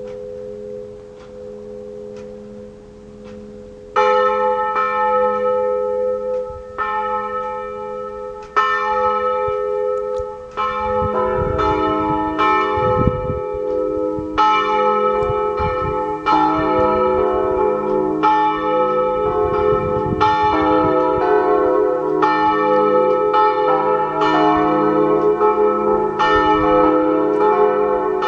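Swinging church bells from a five-bell peal cast by the Pruneri foundry of Grosio, struck by their clappers. For the first few seconds only a lingering hum of earlier strokes is heard. About four seconds in the strokes begin, and they grow denser as lower-pitched bells join, into a full peal.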